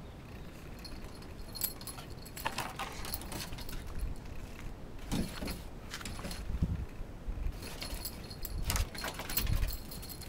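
Metal dog tie-out chain jangling and clinking in short irregular bursts, several times, with low thumps under some of them.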